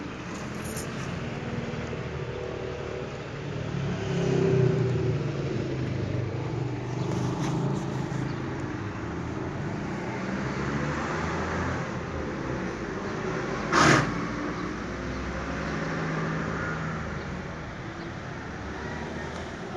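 A motor vehicle running nearby, a low rumble that swells and fades over several seconds. A single sharp knock comes about two-thirds of the way through.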